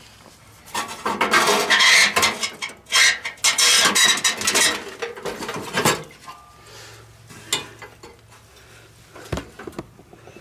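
Metal scraping and clinking as multi-tool pliers grip and work the pump fitting on an old camp stove's steel fuel tank. It is loud and irregular for the first half, then quieter handling with a couple of sharp knocks near the end.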